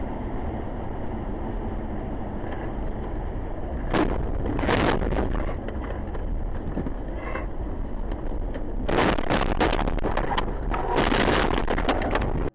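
Car running on a snow-covered highway, a steady road and wind noise heard from inside the cabin, with loud crunching and scraping bursts about four seconds in and again from about nine seconds in as the car goes off the road in a crash. The sound cuts off suddenly at the end.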